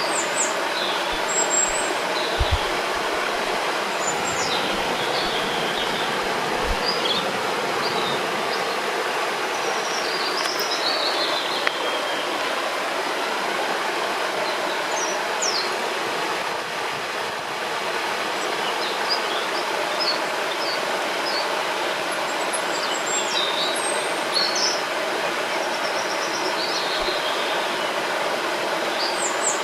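Steady rush of a flowing river, with small songbirds chirping and trilling in short bursts over it.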